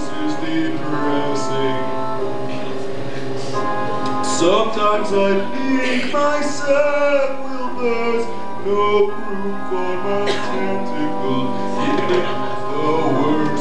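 Opera-style stage music with singing: a voice holds long notes over instrumental backing, sliding up in pitch a few times.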